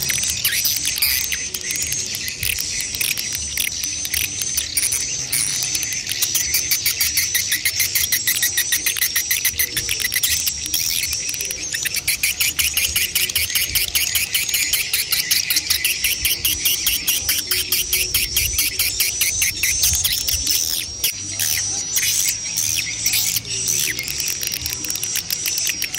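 Swiftlet calls, adult and chick together, as used in a swiftlet lure sound: a dense stream of very rapid clicking trills under a high, wavering twitter, going on without a break.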